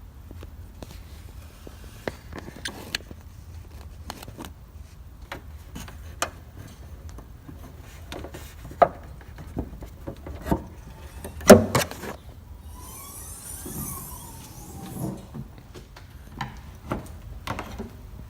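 Hand tools and car parts being handled at the front of a car: scattered clicks and knocks, with one loud knock a little past halfway and a short rattling scrape soon after.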